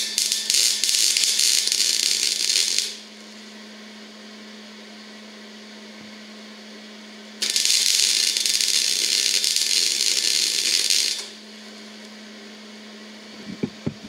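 MIG wire-feed welder arc crackling in two runs of about three and a half seconds each, the second starting about seven and a half seconds in, with a steady low hum underneath.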